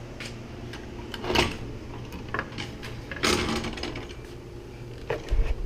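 Scattered clicks, knocks and rustles of a handheld camera being carried on foot, the loudest knock about a second and a half in, with a low rumble near the end.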